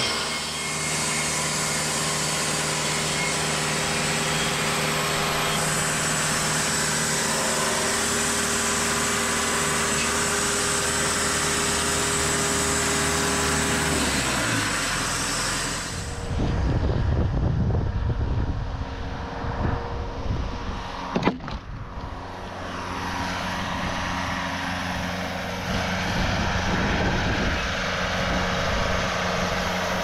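Engine of a TimberKing 2520 band sawmill running steadily with a high hiss while the mill saws; about 14 seconds in, the engine note falls away. The mill is then heard farther off under a low wind rumble on the microphone, with a sharp click about 21 seconds in.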